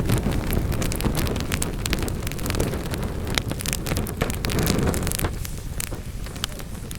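Wood fire burning in a fireplace, crackling and popping in many sharp, irregular snaps over a low, steady rumble of flame. The rumble eases off near the end.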